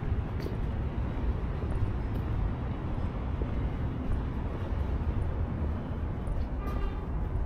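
Steady low rumble of outdoor city street ambience, with a few faint clicks and taps.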